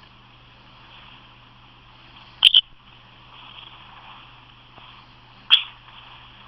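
A person hiccuping twice, about three seconds apart, each hiccup a short sudden catch of the voice, the first one doubled. It is recorded on a phone's microphone over a steady low hum.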